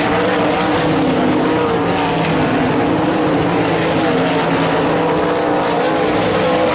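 Several limited sprintcar engines racing together around a dirt oval, their pitches rising and falling against one another as the cars power through the turns and down the straights.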